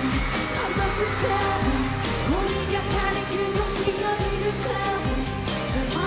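Live K-pop performance: a boy group singing over a pop backing track with a steady beat.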